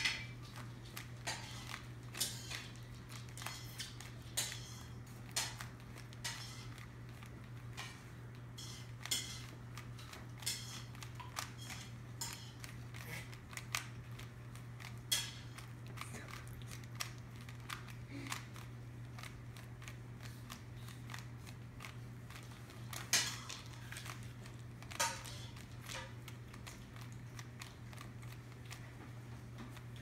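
Plastic Rubik's cube layers being twisted by hand: irregular clicks and snaps as the faces turn, with now and then a louder click.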